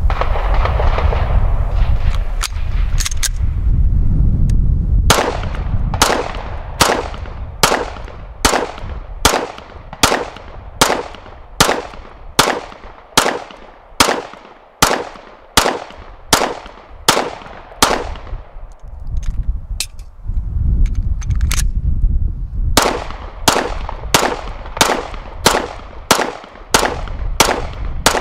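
Steyr M9-A2 pistol firing shots at a steady pace of about one and a half a second: a long string of around eighteen, a pause of a few seconds, then a second string near the end. A low rumble fills the first few seconds before the shooting and the pause between strings.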